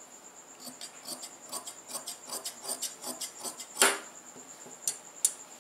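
Large steel tailor's shears cutting through cloth on a cutting table: a run of short crisp snips, then a sharp louder click a little under four seconds in, and two lighter clicks near the end.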